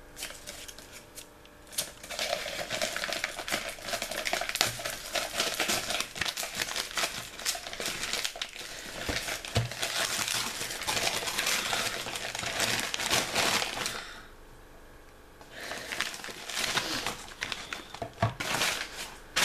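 Paper wrapping being crumpled and rustled by hand, a dense crackling that stops for a second or two about three-quarters of the way through and then starts again.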